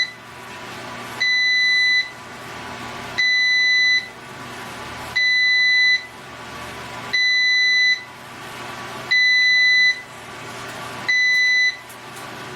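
RecorderGear TR600 call recorder beeping: a high steady beep of under a second, repeated about every two seconds, about six times, as an alert right after its SD card is pulled out.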